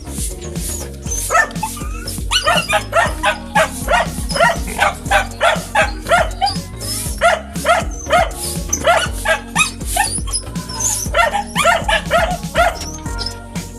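A dog yipping and barking in a rapid series of short, high calls, about three a second, with a short pause near the end, over background music.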